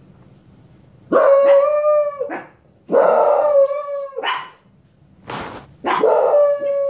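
A dog howling: three long howls, each held on one steady pitch, with a brief rough noise just before the third.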